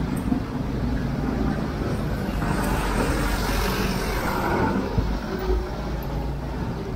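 Street traffic: motor vehicle engines running and passing, growing louder in the middle as a box truck goes by close, with a short knock about five seconds in.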